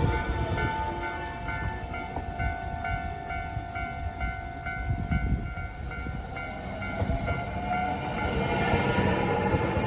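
A Japanese level-crossing warning bell rings in an even clang about twice a second while an electric train runs past over the crossing, its wheels rumbling and clattering under a steady whine that sinks a little in pitch.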